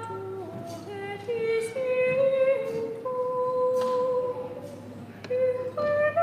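Unaccompanied female singing of a slow liturgical melody in a single line, notes held long and stepping up and down.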